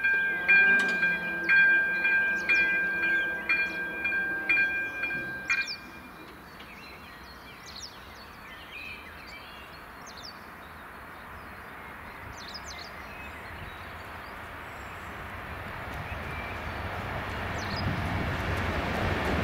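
Level-crossing electronic warning bell dinging about twice a second, with a low hum under it, until it cuts off about six seconds in as the barriers come down. After that come a few bird chirps and the rumble of an approaching train, growing steadily louder toward the end.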